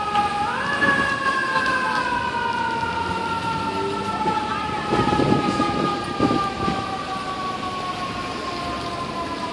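Fire engine siren sounding: its pitch rises sharply about half a second in, then slides slowly downward as it winds down, with a brief louder rumble around the middle.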